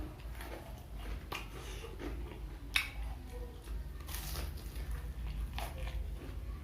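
Close-up chewing and biting into crispy Indonesian fried snacks (gorengan), with several sharp crunches, the loudest about three seconds in.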